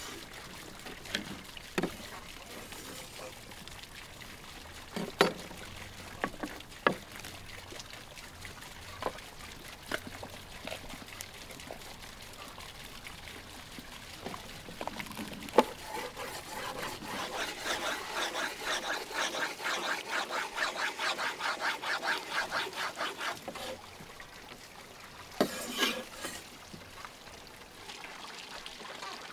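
Cleaver-style knife on a wooden cutting board: scattered knocks and taps, then a steady run of quick chops, about four a second, for several seconds past the middle.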